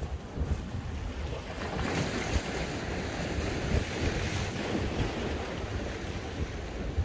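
Sea waves washing onto the shore, one swelling in about two seconds in and ebbing away, with wind buffeting the microphone.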